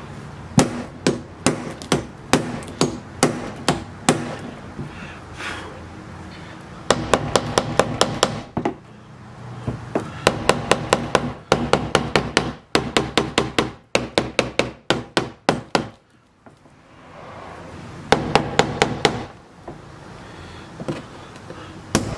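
Hammer striking a screwdriver set against the rusted steel locking ring of a 2005 Jeep Grand Cherokee fuel pump sending unit on its tank, knocking the seized ring around to break it free. The blows come in quick runs of sharp taps, several a second, with short pauses between.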